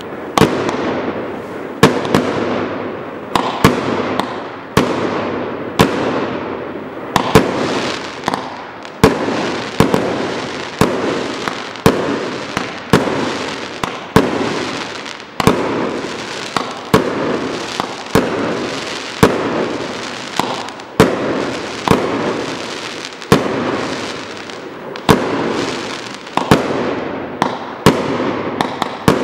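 Kimbolton Fireworks Sovereign 150-shot compound barrage firing a steady run of shots: sharp bangs about once a second, each trailing off into a fading noisy wash before the next.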